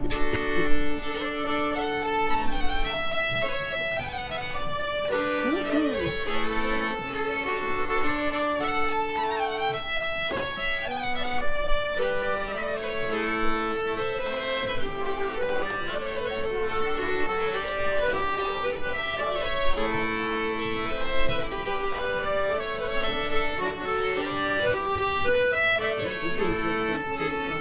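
Background music: a violin melody of quick, stepping notes over accompaniment, playing steadily.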